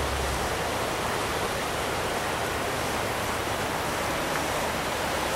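Small rocky stream rushing over rocks in riffles, a steady even rush of moving water.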